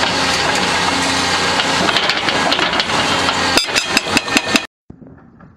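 CMB RB26 hydraulic rock breaker on a Kato HD1430 excavator hammering dolomite, a loud rapid battering over the excavator's diesel engine hum. Late on, the blows come through as separate sharp strikes, then the sound cuts off suddenly to a much fainter one.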